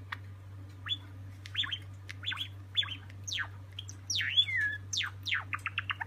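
Silver-morph Java sparrow singing: a string of short sharp chirps and falling whistled notes that come faster toward the end, over a steady low hum.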